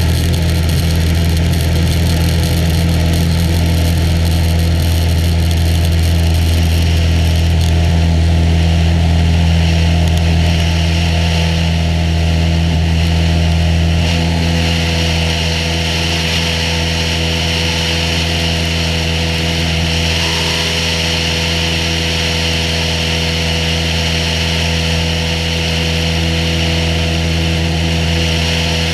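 Cessna 182H's six-cylinder Continental O-470 engine and propeller running steadily, heard from outside the airplane; the level drops slightly about halfway through.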